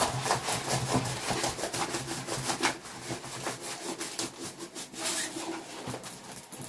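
A stiff diamond painting canvas with poured glue being rolled back on itself by hand: continuous rubbing with many small crackles.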